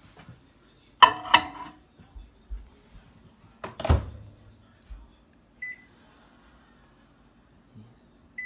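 Microwave oven being loaded and set: two sharp clattering knocks about a second in, a heavy thud of the door shutting about four seconds in, then two short keypad beeps, one past the middle and one at the very end.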